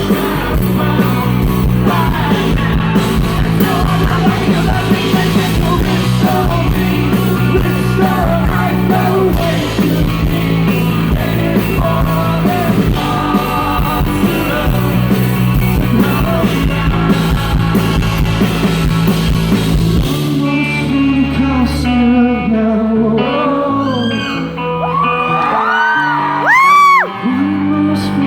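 Live rock band playing a song with a lead singer, drums, bass and guitar. About twenty seconds in the drums drop out and the band falls to a sparser ending with held and sliding notes.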